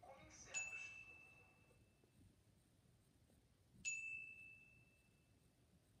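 A bell-like ding sound effect, twice, about three seconds apart: each a single clear high tone that rings out and fades. It marks the carnage counter ticking up.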